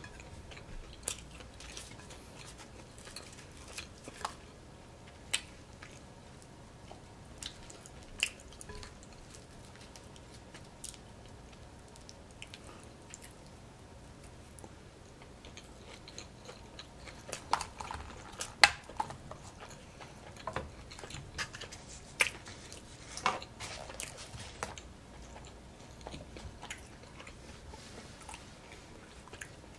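Close-up eating sounds of a person chewing and biting food, with sharp wet clicks and smacks. They come sparsely at first and cluster more densely about halfway through.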